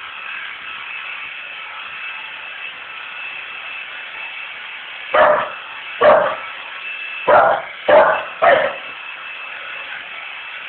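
A Staffordshire bull terrier barks five short times in the second half, over the steady running hum of a vacuum cleaner.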